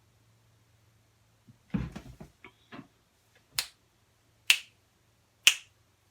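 A person snapping their fingers in a slow, steady beat, three sharp snaps about a second apart, after a brief jumble of soft knocks and rustling about two seconds in.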